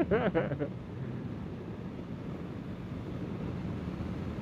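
Honda CBR650R inline-four engine running steadily while riding, under a steady rush of road and wind noise.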